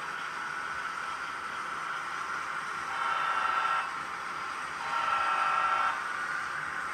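Model diesel locomotive horn sounding two blasts, the second a little longer, over the steady running noise of the model trains.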